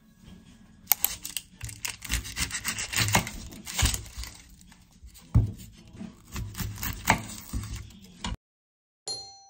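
Kitchen knife peeling and cutting a yellow onion on a wooden cutting board: scraping and tearing of the dry skin, with irregular knocks of the blade on the board. The sounds stop suddenly about a second before the end.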